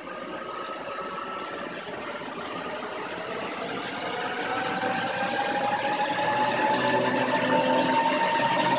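Spondoolies Tech SP30 bitcoin miner's cooling fans spinning up at first power-on: a steady rush with a whine that slowly rises in pitch and grows louder, ending pretty loud.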